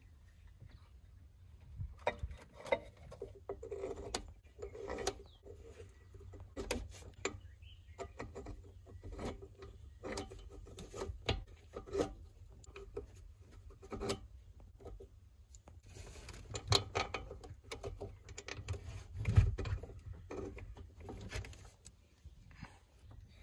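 Irregular metal clicks and clinks as steel flanged head bolts are set by hand into the aluminium cylinder head of a Sea-Doo 951 two-stroke engine during reassembly, with one louder knock late on.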